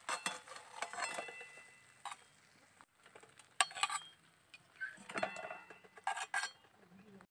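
Metal slotted spatula scraping and clinking against an aluminium cooking pan and a clay plate as boiled fish pieces are lifted out, in a scattered series of short knocks with a little metallic ringing.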